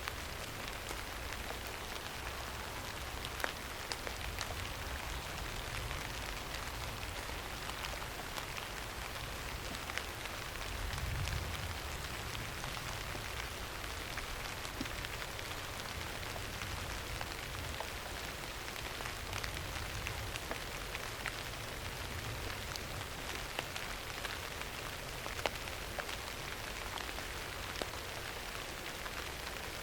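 Steady rain falling on a surface, an even hiss with scattered individual drops ticking sharply. A brief low rumble swells about eleven seconds in.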